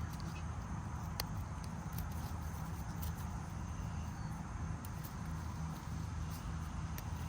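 Steady low hum with a few faint, sharp clicks of small parts being handled as O-rings are fitted onto an oil filter housing cap.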